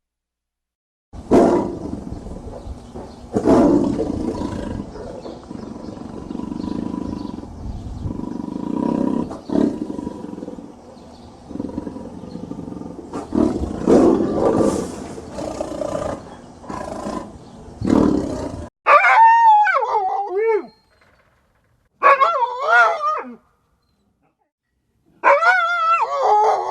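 A big cat roaring and growling in a run of deep, rough roars. After a sudden cut, a dog gives three short howls that waver up and down in pitch.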